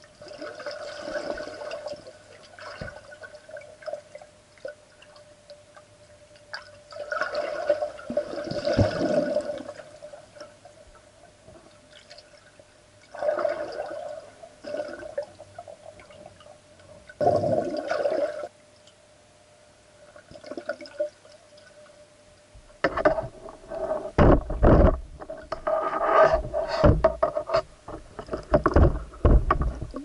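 Underwater pool sound: water swirls and gurgles in surges every few seconds over a steady hum. From about three quarters of the way in it turns to close, heavy sloshing with deep thumps against the camera.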